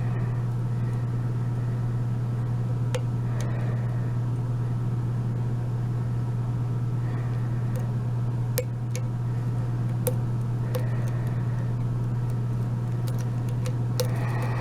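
A steady low hum throughout, with a few sharp, light metallic clicks about three, nine, ten, eleven and fourteen seconds in: a lock pick and tension wrench working the pin stack of an Abus 72/40 padlock.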